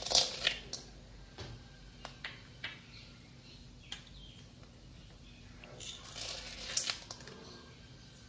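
Dry puffed rice, peanuts and roasted gram rustling and clicking against an aluminium kadai as they are mixed. There are two bursts of rustling, one at the start and one about six seconds in, with scattered light clicks between them.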